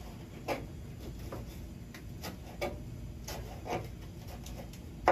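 Chopsticks clicking against a frying pan as food in it is tossed and turned, a string of light, irregular ticks. The sharpest click comes near the end.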